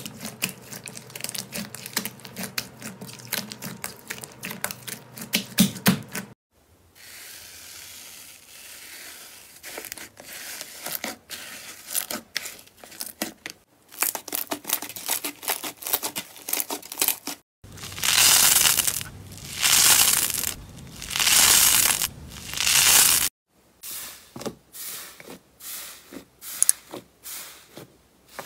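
Hands kneading, stretching and squeezing slime, making dense sticky crackling and popping clicks, with a few abrupt cuts between clips. About two-thirds of the way through come four longer, louder swells of squishing.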